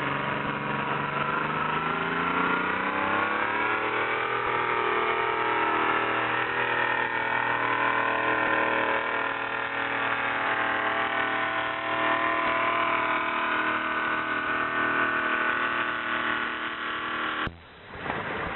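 Pulling tractor's diesel engine revving up over the first few seconds, then held at high revs under full load as it drags the weight sledge. The sound cuts out briefly near the end.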